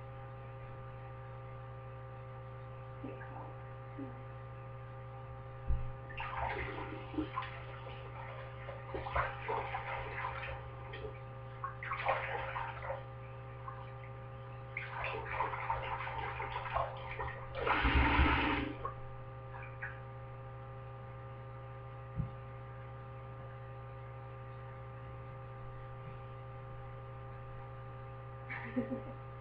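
Tap water running and splashing into a bathroom sink in uneven bursts, the loudest just before it stops, over a steady electrical hum that carries on alone afterwards.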